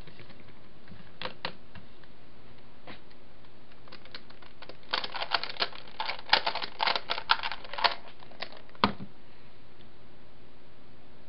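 Plastic clicking of a Skewb twisty puzzle being turned quickly: a few scattered clicks, then a dense flurry of rapid clicks in the middle, and a single sharp clack a little later, over a steady background hiss.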